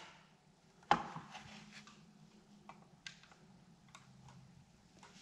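Clicks and taps of small hard plastic CPAP machine parts being handled and fitted by hand: one sharp click about a second in, then several lighter clicks, over a low steady hum.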